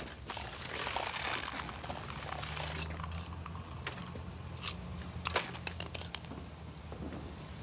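Footsteps scuffing and crunching on gritty concrete and grass, a few separate steps, over a low steady hum.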